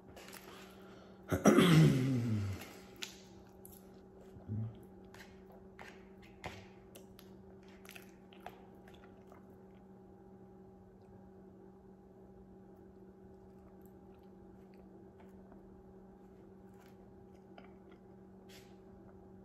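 A person eating with a fork from a paper plate: chewing and small clicks of the fork, with one loud drawn-out vocal sound falling in pitch about a second and a half in and a short low hum of the voice a few seconds later. A steady low hum runs underneath.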